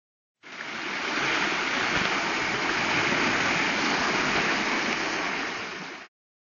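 Fast river current rushing, a steady wash of water noise that starts suddenly about half a second in and cuts off suddenly about six seconds in.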